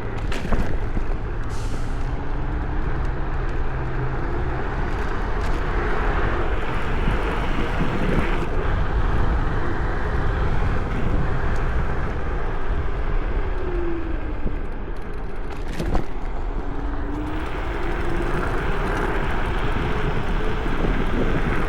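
Rushing noise from riding an electric scooter, heard on a chest-mounted camera, with a faint motor whine that rises and falls with speed. A single knock comes about three-quarters of the way through.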